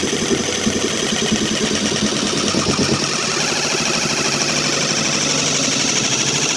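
Orbital jigsaw running steadily, its blade stroking rapidly as it cuts a circular hole through the plastic deck of a kayak.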